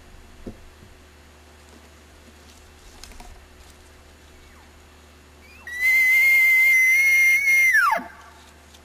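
An elk bugle: one loud, high whistle held for about two seconds, then dropping sharply in pitch as it ends.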